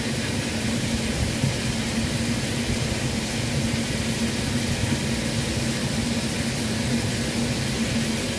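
Steady electric hum over an even rushing noise, typical of a kitchen appliance fan running at a constant speed, with no clear breaks or knocks.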